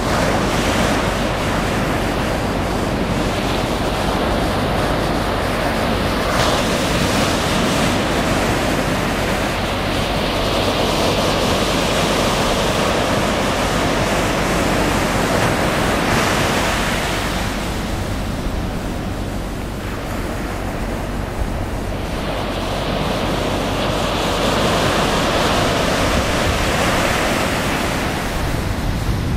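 Small ocean surf breaking and washing up the sand in a continuous rushing hiss. It swells and eases with each set of waves, with a quieter lull about two-thirds of the way through.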